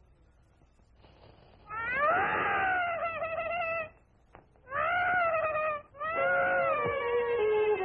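Cartoon baby crying: three long wails, each rising and then falling in pitch, with short breaks between them. Steady musical notes come in under the third wail near the end.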